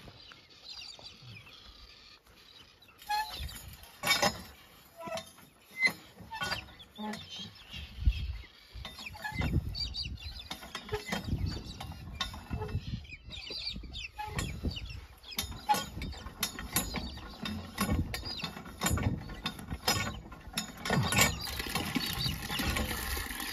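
A hand-operated water pump being worked by its long lever handle, squeaking and clanking repeatedly as it is stroked. Near the end, water starts splashing from the spout into a metal drum.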